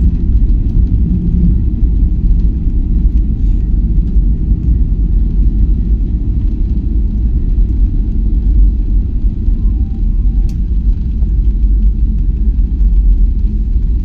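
Steady low rumble heard from inside a moving vehicle, with a few faint ticks over it.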